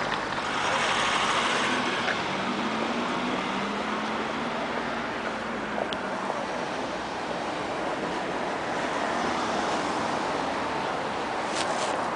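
Street traffic: cars driving past close by, a steady wash of engine and tyre noise, with a low engine hum standing out in the first half.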